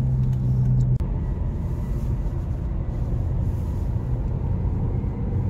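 Inside the cabin of a moving Volvo V40 T4 R-Design: a steady low rumble of engine and tyre noise. A steady low hum stops abruptly about a second in, and the rumble carries on evenly.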